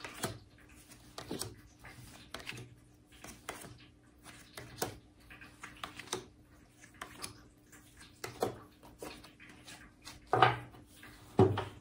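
Tarot cards dealt one at a time onto a wooden tabletop: soft taps and slides about once a second, with two louder knocks near the end.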